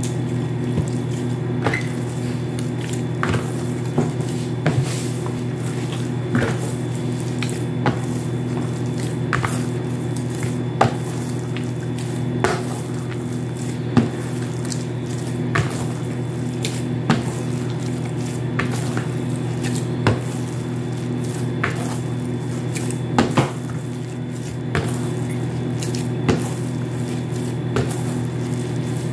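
Hands kneading oiled bread dough in a plastic basin, a squishy slap about every second and a half as the dough is pressed and folded, over a steady low hum.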